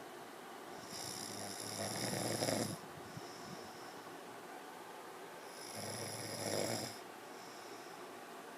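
A man snoring in his sleep: two long snores about five seconds apart, each growing louder over a second or two and then stopping abruptly, with a softer breath out between them.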